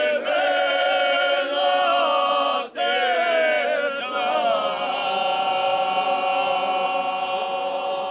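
Group of men singing a traditional bečarac a cappella, several voices holding long drawn-out notes together, with a short break for breath about two and a half seconds in.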